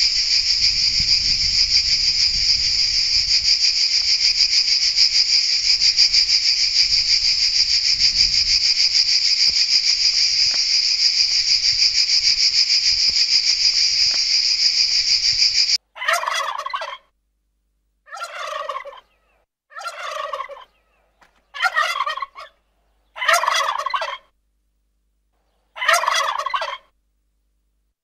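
A cicada's continuous high buzzing song, steady for about sixteen seconds and then cutting off abruptly. It is followed by a turkey gobbling six times, about two seconds apart.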